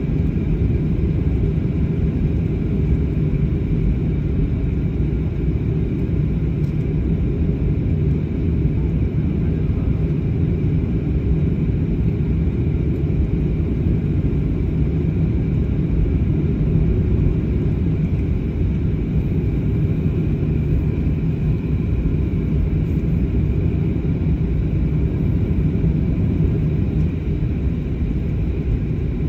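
Jet airliner cabin noise while taxiing: the engines running at low taxi power under a steady low rumble from the rolling aircraft, with a faint high hum above it.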